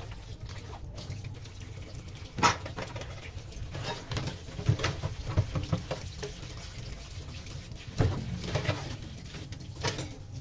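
Kitchen tap running steadily into a stainless steel sink during hand dishwashing, with a soapy sponge scrubbing a metal strainer. Dishware knocks sharply against the sink about two and a half seconds in and again about eight seconds in.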